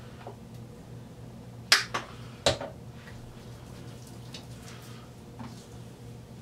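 Two sharp clicks about three-quarters of a second apart, with a few faint ticks and a low steady hum under them.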